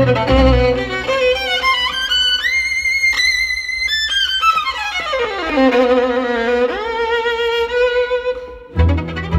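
Solo violin playing an unaccompanied passage: notes climb high, then slide down in one long sweep to a low note, and rise to a long held note with vibrato. Near the end the orchestra comes back in underneath.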